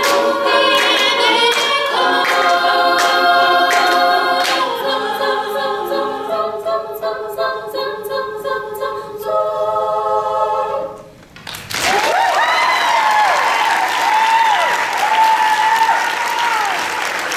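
Women's a cappella group singing the final sustained chords, with sharp rhythmic beats underneath. The singing stops about eleven seconds in, and the audience breaks into applause and cheering with whoops.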